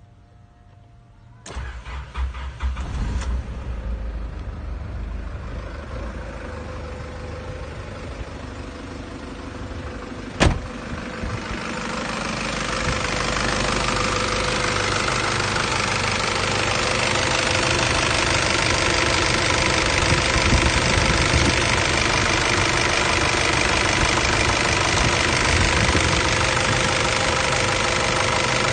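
Nissan Patrol ZD30 3.0-litre four-cylinder turbodiesel cranked and catching about a second and a half in, then running steadily and growing louder from about twelve seconds in, with one sharp knock about ten seconds in. It starts quickly with its glow plugs fed straight from the battery, bypassing the defective glow plug relay behind its hard cold starting.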